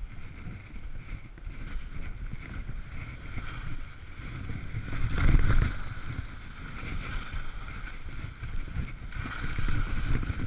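Rossignol skis sliding and scraping down soft, churned snow, with wind buffeting the microphone; the scraping swells briefly about five seconds in.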